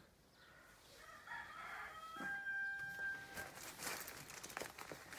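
A rooster crowing, the call rising through a few short notes and ending in one long held note. Scattered clicks and rustling follow.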